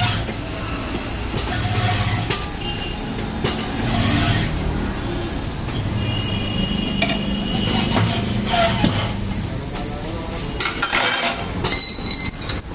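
Tyre-shop work on a motorcycle wheel: metal tools clinking and knocking now and then over a low background hum, with a short burst of hiss about eleven seconds in.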